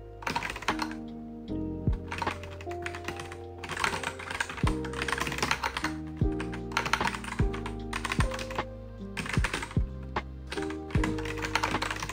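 Computer keyboard typing in quick, irregular bursts of keystrokes, over lofi background music with held chords and a bass line.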